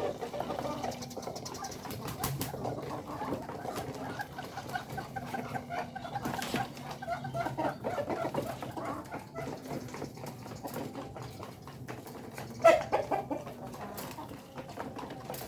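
A flock of free-range chickens clucking and milling about continuously, with one sharper, louder call about thirteen seconds in.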